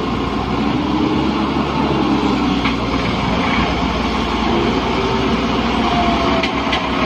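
Diesel engines of a Samsung wheeled excavator and a Massey Ferguson 260 tractor running hard together, a loud, steady rumble, as the excavator's bucket hauls the tractor and its loaded sand trolley.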